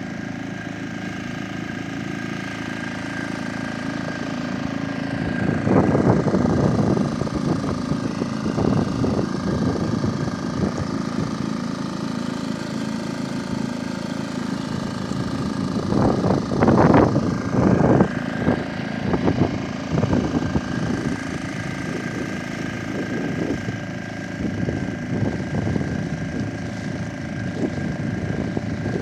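Suzuki outboard motor running steadily at cruising speed, pushing an inflatable boat across the water. Louder rushing bursts come about 6 seconds and 17 seconds in, and again near the end.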